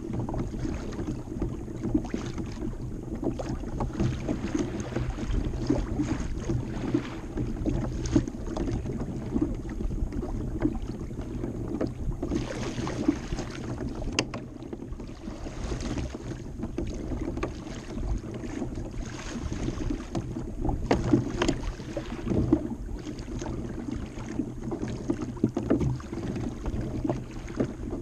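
Choppy lake water lapping and slapping against a plastic fishing kayak's hull: a steady low wash with frequent small irregular knocks.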